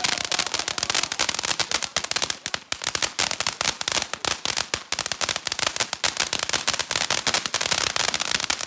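Firecrackers going off in a rapid, unbroken stream of small sharp cracks, many each second.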